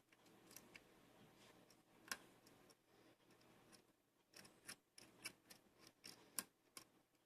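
Faint, irregular clicks and ticks of a lock pick working the pins inside a lock cylinder under tension. The clicks come more often in the second half.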